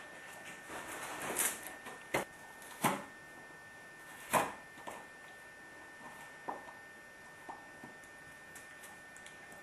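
Great Pyrenees chewing on a cardboard milk carton: a run of sharp crackling crunches, loudest in the first half, then a few softer ones. A faint steady high-pitched hum sits underneath.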